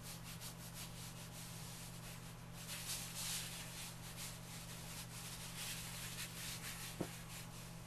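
Lecturer's chalk scraping and rubbing across paper in quick repeated strokes, a soft scratchy sound, a little louder about three seconds in, over a faint steady electrical hum.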